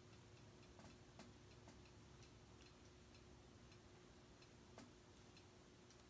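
Near silence: a few faint, irregular clicks of small scissors snipping the corners of a knit fabric seam allowance, one louder about five seconds in, over a faint steady hum.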